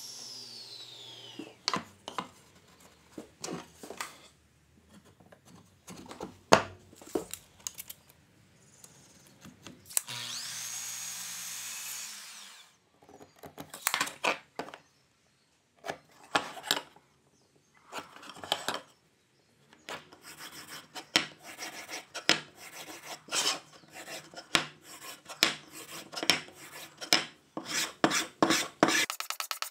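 A table saw blade spins down with a falling whine, followed by scattered knocks of wood being handled. About ten seconds in, a miter saw spins up and cuts through a sapele board for a couple of seconds. Near the end comes a run of short, regular rubbing strokes of hand tools on wood.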